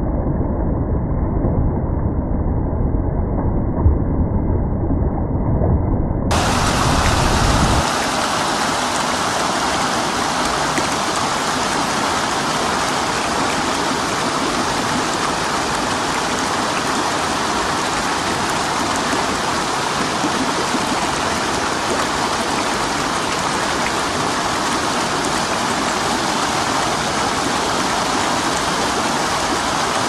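Water splashing and churning against a small water wheel's paddles, low and muffled, for about the first six seconds; then the sound cuts to the steady, bright rushing of a shallow stream's flowing water.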